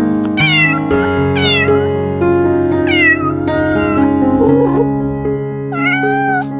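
A cat meowing four times, the last call longer, over background piano music.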